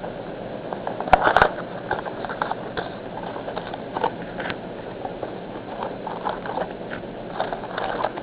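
Crinkling, rustling and light clicks as a pack of trading cards and its wrapper are handled and opened, loudest about a second in.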